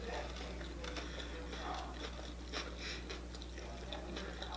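A person chewing a mouthful of food with the mouth closed: faint, scattered mouth clicks over a steady low hum.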